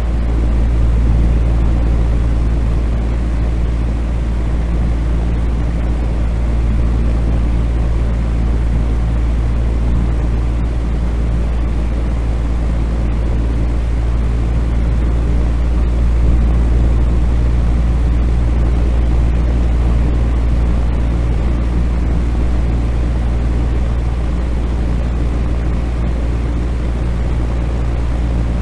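Electric fan running steadily: a constant low motor hum under an even rush of air.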